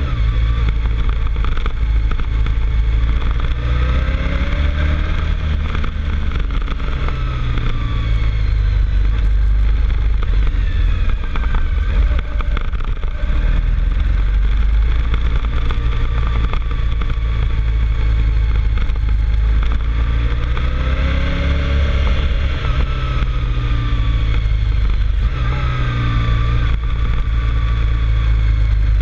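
Motorcycle engine pulling up a winding climb, its pitch rising and falling several times as it accelerates and eases off through the bends, over a steady low rumble.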